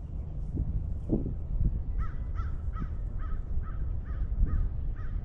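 A bird calling in a quick, even series of short calls, a little over two a second, starting about two seconds in, over a steady low rumble of wind on the microphone.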